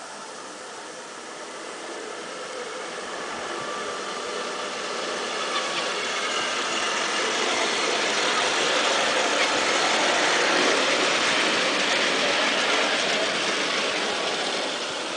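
Double-headed 5-inch gauge garden-railway train, two small boxcab locomotives pulling a passenger car, running along the track. Its steady mechanical running noise grows louder as it approaches and passes close by, about two-thirds of the way in, then fades as it moves away.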